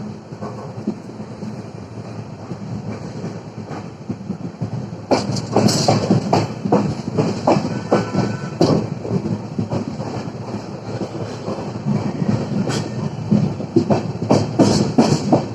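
Train departing a station: a steady rumble of the wheels on the track, then from about five seconds in a louder clickety-clack of the wheels running over rail joints and points, with many irregular clanks.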